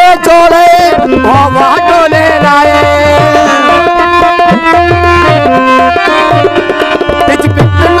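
Harmonium and tabla playing together. The harmonium holds steady reed chords and melody notes, and the tabla keeps a brisk rhythm whose bass drum strokes bend in pitch.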